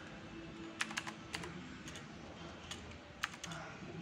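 Computer keyboard typing: a few irregular keystroke clicks, several in a quick run about a second in and two more a little past three seconds.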